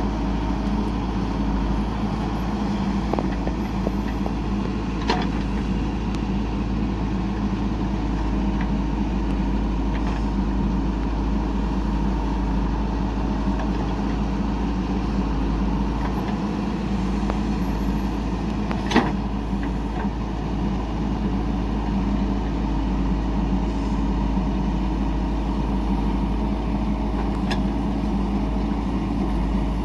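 JCB 3DX backhoe loader's diesel engine running steadily while it digs and loads soil, with two sharp knocks, one about five seconds in and a louder one a little past the middle.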